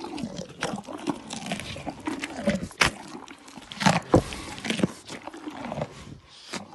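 Black rhino chewing its food close up, with many irregular sharp clicks and wet mouth sounds.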